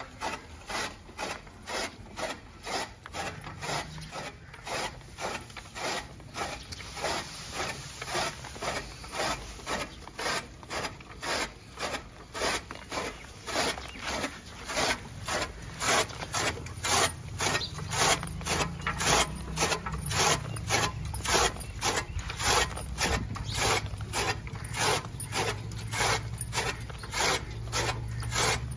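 Hand-cranked chaff cutter chopping green fodder: the blades on the flywheel slice through the stalks in a steady rhythm of about two cuts a second, getting louder about halfway through.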